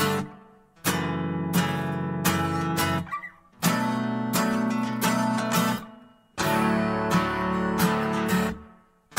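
Background music: strummed acoustic guitar chords, breaking off briefly three or four times.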